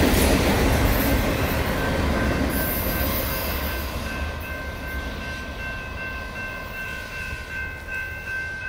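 Freight train of autorack cars rolling past and fading away as the last car clears the crossing. Under it, a grade-crossing warning bell rings in a steady repeating pattern, standing out more as the train noise dies down.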